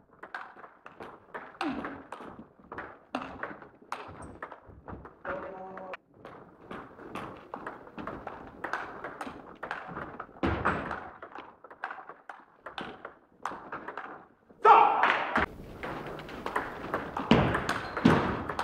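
Table tennis rallies: the ball clicking off the bats and tapping on the table in quick back-and-forth exchanges. Voices in the hall, with a loud voice breaking in about three-quarters of the way through.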